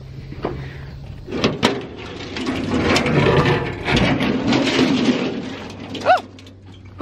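Scrap metal and junk clattering and scraping as a scrap pile is rummaged through, with a burst of rattling about a second in that runs for several seconds, and a short squeak near the end.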